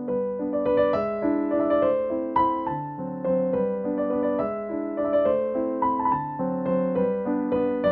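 Background piano music: a melody of single notes played over held chords.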